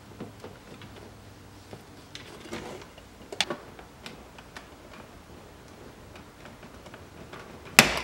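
Plastic center console trim of a Subaru WRX STI being handled by hand: scattered light clicks and rustles, then a sharp, loud snap near the end as a console piece pops out of its clip.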